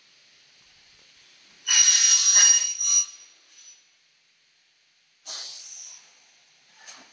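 Double-head aluminium cutting machine working: a loud burst of about a second with a high whine, then a second, shorter and weaker burst a few seconds later.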